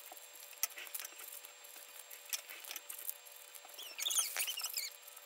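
Scissors cutting newspaper into strips, with small sharp snips and paper rustle. About four seconds in comes a brief burst of high squeaky chirps, the loudest sound.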